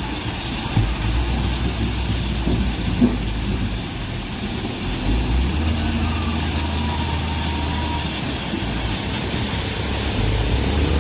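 Diesel engine of heavy earthmoving machinery running steadily with a low rumble. There is a short knock about three seconds in.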